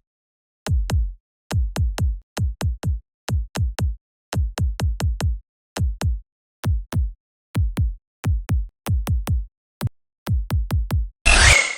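Dry electronic kick drum playing a sparse pattern, mostly in quick pairs with short silences between. Each hit is a click that drops into a deep thump, and the hits crowd closer together near the end. Just before the end, a dense, loud electronic dubstep texture comes in.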